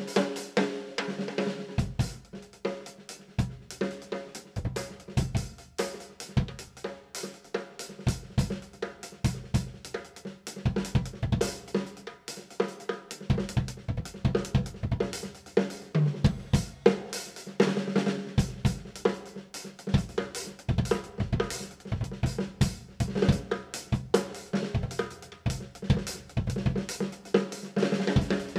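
Acoustic drum kit played as a continuous groove with fills: kick drum, snare, toms, hi-hat and Sabian cymbals, dense hits with no breaks.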